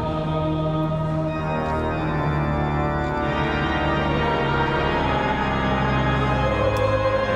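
Church pipe organ playing slow sustained chords, the bass notes changing every second or two, sounding through the cathedral.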